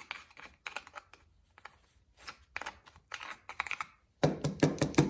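Abrasive scrubbing pad rubbing caked-on grime off a chainsaw part in quick, irregular scratchy strokes, turning louder and heavier about four seconds in.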